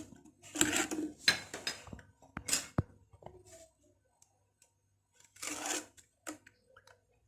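A metal spoon scraping and clinking against a bowl in a few short bursts, with sharp clinks about two and a half seconds in and quiet gaps between. This is the sound of dry flan powder and cornstarch being spooned into the bowl.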